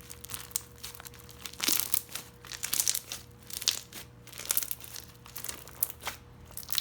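Textured slime with small square blocks mixed in being squished and stretched in the hands, giving irregular crackling, popping squelches that come in clusters.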